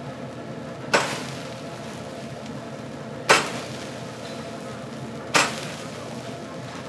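Chicken skewers sizzling on a wire grill, with three sudden sharp bursts about two seconds apart, each dying away quickly.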